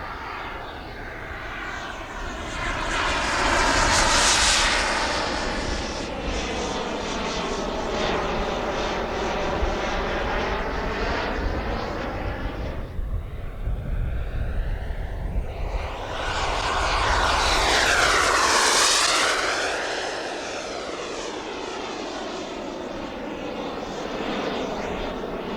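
Twin JetsMunt Merlin model jet turbines of a large RC English Electric Lightning flying past. The turbine roar and whine swell loudly as the jet passes, about four seconds in and again near the eighteen-second mark, with the tone sweeping as it goes by, and fade between the passes.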